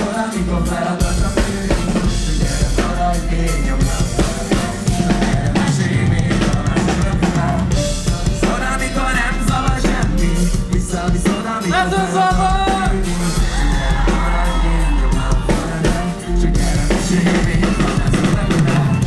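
Live band playing on stage, with a drum kit keeping a steady beat on bass drum and snare under electric guitar.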